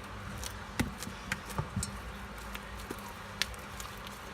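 Fluffy slime being kneaded by hand: soft squishing with a few short sticky clicks and pops, over a steady low hum.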